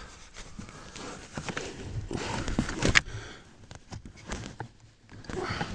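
Rustling and small plastic clicks from handling the heater blower motor's wiring connector and its clip under the dashboard, with one sharp click about three seconds in.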